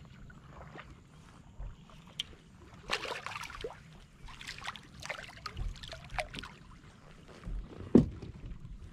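Irregular handling noises on a kayak while fighting a fish on a spinning rod: rustles, clicks and scrapes, with one sharp knock about eight seconds in, the loudest sound.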